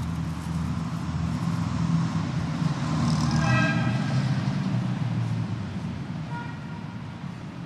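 A motor vehicle passing on the road, its low rumble building to a peak about halfway through and then fading. A brief tonal note sounds at the loudest point, and a shorter one near the end.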